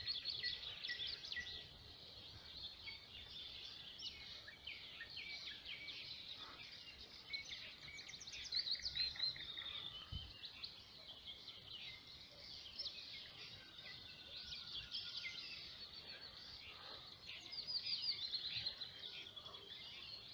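Several small songbirds singing, with quick chirps and rapid trilled phrases that come in bursts, loudest at the start, about eight seconds in, and again around seventeen to nineteen seconds in.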